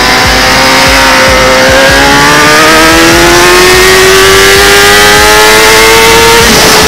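Kawasaki ZX-10R inline-four racing engine under full throttle, its note climbing steadily through a gear as the bike accelerates out of a corner, then dropping suddenly near the end at an upshift. Heavy wind rush runs under it.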